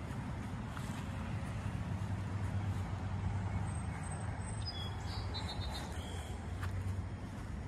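Outdoor garden ambience: a steady low rumble throughout. A bird chirps a few short high notes around the middle.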